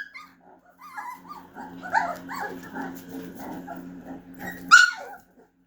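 Siberian husky puppy growling and barking in play, a quick run of short grumbling calls, then one loud sharp bark near the end.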